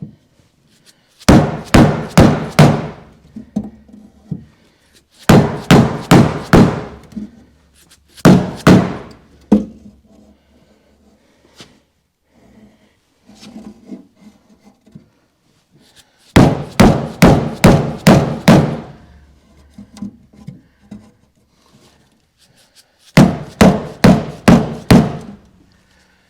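Hammer blows knocking a dent out of a steel car door panel, in five runs of several quick strikes, about three a second, with pauses between.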